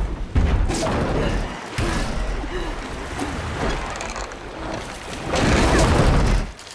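Alligator thrashing through floodwater: heavy, churning splashes over a deep booming rumble, in several surges. The biggest surge of splashing comes near the end and cuts off suddenly.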